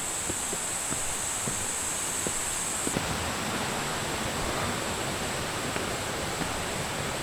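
Steady rushing of a mountain stream, with a high, thin insect drone over it that drops away about three seconds in.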